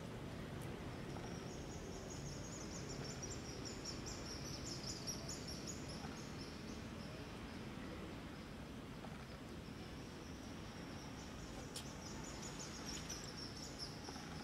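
Outdoor ambience with a high, rapid insect trill in two long spells, the first from about a second and a half in to about five seconds, the second from about ten seconds to the end, over a steady low hiss. A single sharp click about twelve seconds in.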